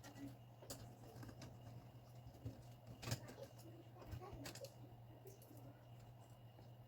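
Faint, scattered clicks and taps of small laptop parts and screws being handled during reassembly, the clearest about three seconds in, over a steady low hum.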